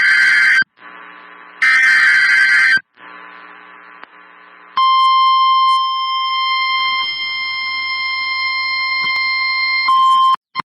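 NOAA Weather Radio Emergency Alert System activation. Two harsh, screechy digital data bursts of about a second each come first; these are the SAME header announcing a severe thunderstorm warning. About five seconds in, the steady single-pitch warning alarm tone starts, holds for about five and a half seconds, and cuts off abruptly.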